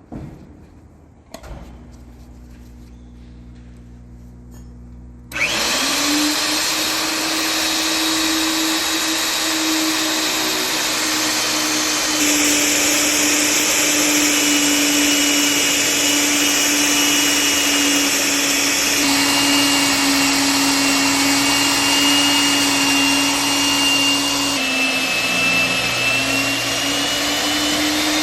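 Milwaukee 3/4-inch magnetic drill: a click and a low hum about a second and a half in, then about five seconds in the drill's electric motor starts and runs steadily with a loud whine.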